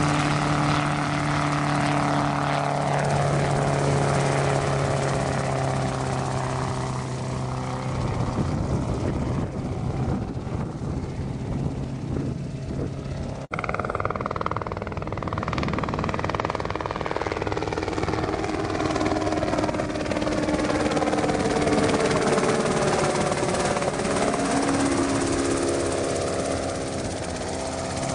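RotorWay Exec 162F helicopter, its rotor and flat-four engine running in flight. A steady low hum while it is close in the first seconds gives way to a broader rotor noise as it flies off. After a short break about halfway, the pitch sweeps down and back up as it flies past and circles.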